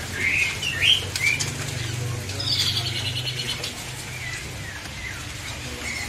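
Caged songbirds chirping with short calls, then a fast trill of evenly spaced high notes about two and a half seconds in, with birds fluttering their wings in the cages.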